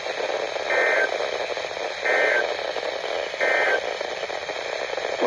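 Emergency Alert System end-of-message: three short bursts of SAME data tones, about 1.3 s apart, marking the end of the alert. They sound over steady radio hiss.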